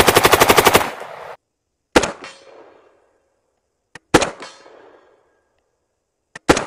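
Submachine gun fire: a rapid fully automatic burst that ends about a second in, then three single shots roughly two seconds apart, each trailing off in echo.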